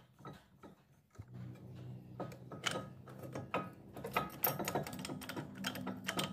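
Quick, irregular metallic clicks and knocks as a threaded brake-caliper piston tool is worked against a rear disc brake caliper. The clicks grow denser and louder about two seconds in, over a low steady hum that starts about a second in.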